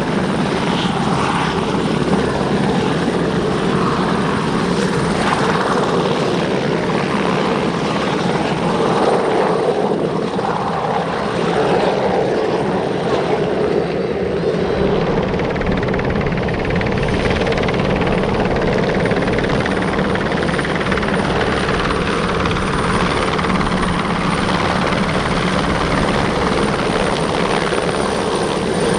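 Sud Aviation Alouette II helicopter in flight, its Turbomeca Artouste turboshaft and rotor running steadily while it flies off and comes back in to land. The low rotor thudding grows stronger about halfway through.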